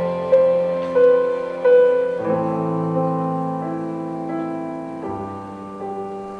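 Slow piano music ending: a few single notes struck over held chords, then fading out.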